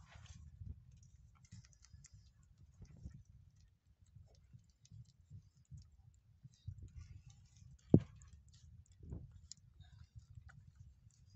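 Faint clicking of a Nigerian dwarf kid goat suckling at its mother's teat, over a low rumble. A single sharp knock about eight seconds in is the loudest sound.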